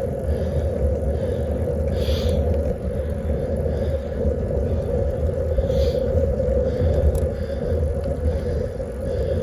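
Steady rumble of wind on the microphone and tyre noise while riding a road bicycle uphill, with faint soft hisses recurring about every half second.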